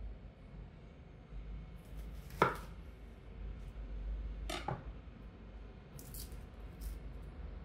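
Japanese kitchen knife cutting through an onion onto a wooden cutting board: two sharp chops, the louder one about two and a half seconds in and another about two seconds later. Then comes light crackling as the onion's papery skin is peeled off by hand.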